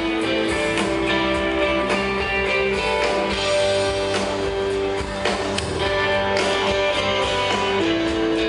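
Live band music played over a concert PA and heard from within the audience, with guitar prominent under sustained held melody notes.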